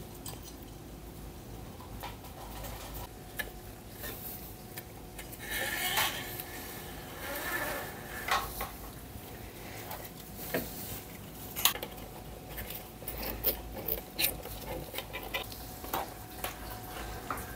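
Steel throttle cable being fed through a motorcycle handlebar: scattered light metallic clicks and scraping as the wire is pushed and pulled, with rustling of handling in between.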